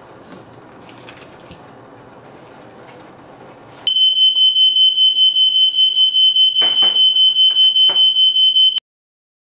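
Smoke alarm going off about four seconds in: a loud, piercing high tone pulsing about four times a second, set off by smoke from the cooking, then cutting off suddenly near the end. Before it there is only a low steady kitchen hum, and a couple of knocks sound under the alarm.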